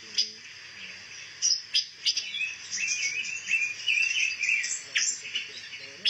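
Pancawarna songbird calling: a few sharp chirps, then a run of quick twittering notes from about two to four seconds in, and another sharp chirp near the end.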